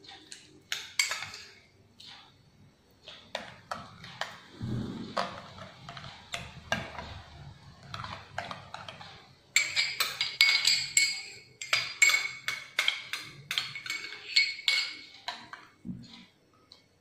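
Metal spoon stirring liquid in a glass bowl, clinking rapidly against the glass for several seconds from just past the middle. Before that come scattered lighter clinks and knocks.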